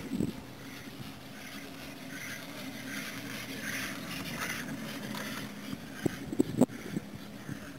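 Chairlift running along its haul cable: a steady low hum with a light hiss over it, and a quick cluster of knocks about six seconds in.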